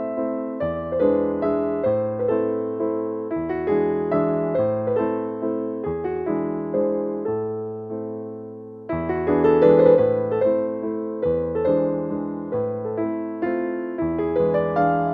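Background music: a gentle piano melody over a bass line, with a new phrase starting about nine seconds in.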